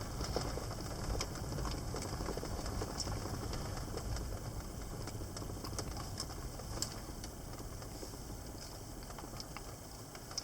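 Vehicle driving, heard from inside the cabin: a steady low rumble with scattered light clicks and rattles.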